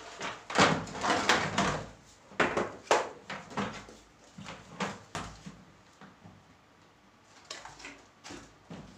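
Hard plastic panels of a Tabitha five-tier plastic wardrobe knocking and clattering against each other and the base as they are handled and set down. The knocks come thick and fast for the first few seconds, then thin out to a few scattered ones, with a short cluster near the end.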